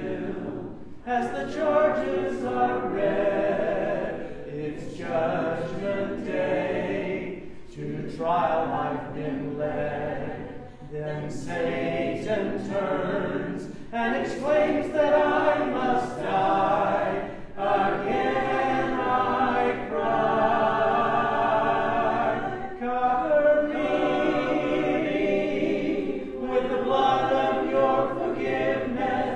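Church congregation singing a hymn a cappella, many voices together, with short breaks between phrases.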